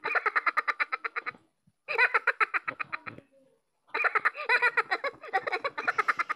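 Thinkway Toys Minion Stuart talking figure playing its recorded laughter through its built-in speaker: rapid, high-pitched cackling in three bursts, the last the longest.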